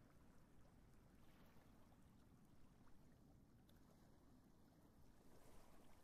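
Near silence: a faint, even low rumble of outdoor background noise, with no bird calls.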